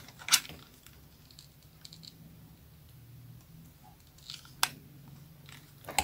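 A few short, sharp clicks and taps from handling a hot glue gun while gluing newspaper-tube petals: one loud click shortly after the start, another about two-thirds of the way through and a third right at the end.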